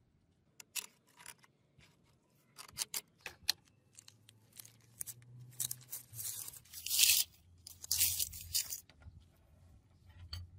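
Taped paper wrapping being torn open by hand: scattered crinkles and rustles at first, then two long, loud rips of tearing paper about two-thirds of the way in.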